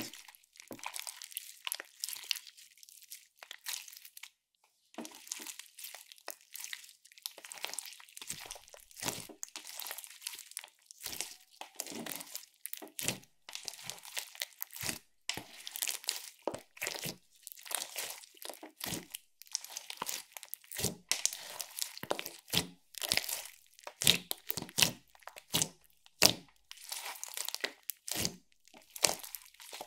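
Clear slime loaded with glitter and sprinkles being stretched, folded and pressed by hand, giving a constant irregular crackling and popping. The crackles are sparser for the first few seconds and grow louder later on.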